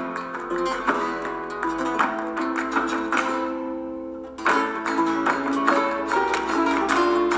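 Flamenco-style acoustic guitar music with quick plucked notes and strummed chords. About four seconds in, a held chord dies away, then the playing starts again at full strength.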